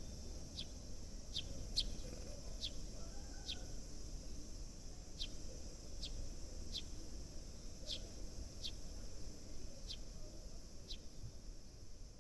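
Sparrows chirping: short, high chirps repeating about once or twice a second over a steady high hiss.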